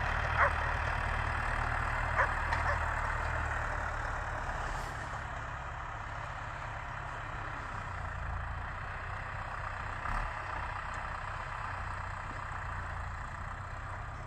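Farm tractor engine running steadily while hauling a wagon of hay bales, with a couple of sharp clicks in the first few seconds; it gets somewhat quieter from about four seconds in.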